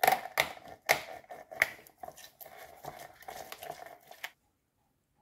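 Kitchen items being handled on a counter: a few sharp knocks in the first two seconds, then lighter clicking and ticking that stops suddenly after about four seconds.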